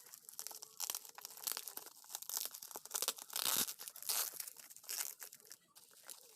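Packaging being handled and torn open by hand, with irregular crinkling, rustling and tearing. The loudest stretch of tearing comes about halfway through.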